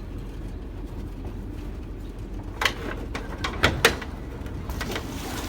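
Slow riverboat's engine running steadily, with a few sharp knocks about two and a half and three and a half seconds in.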